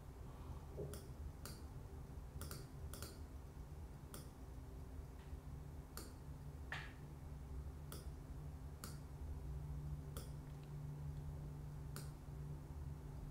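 Computer mouse clicks, about a dozen short sharp clicks spaced irregularly, roughly a second apart, over a low steady hum.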